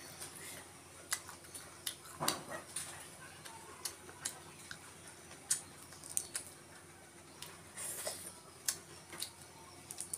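Boiled shrimp shells crackling and snapping as they are peeled by hand, heard as irregular sharp clicks. There are also mouth sounds of eating.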